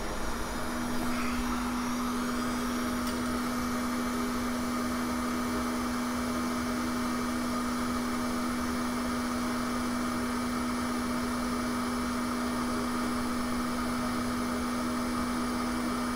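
Small electric blower fan on a micro-soldering bench running steadily: an even whirring hum with a steady low tone, which comes in about half a second in.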